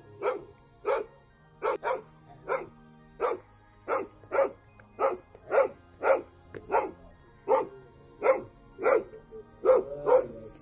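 Australian Shepherd barking repeatedly and without pause, about two barks a second. This is reactive alarm barking at a person approaching the yard.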